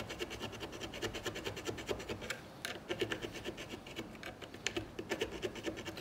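Triangle file rasping against the edge of a metal door strike plate in quick back-and-forth strokes, several a second, with a brief pause about two seconds in. The file is widening the plate's opening at the top so the latch bolt, which sits too low, can catch.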